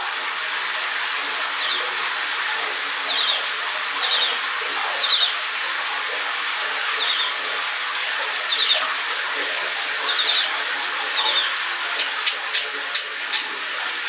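Shower water running with a steady hiss, while a budgerigar gives short high chirps every one to two seconds in response to the running water. Near the end comes a quick run of sharp clicks.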